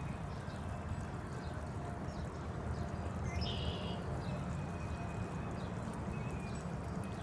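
Backyard pond waterfall splashing and trickling steadily into the pond. A short high chirp comes about three and a half seconds in.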